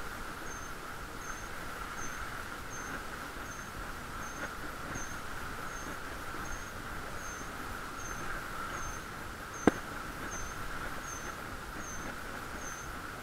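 Muffled bicycle riding noise heard through a waterproof camera housing: a steady hum and rumble, with a faint high chirp repeating about twice a second. One sharp click about ten seconds in.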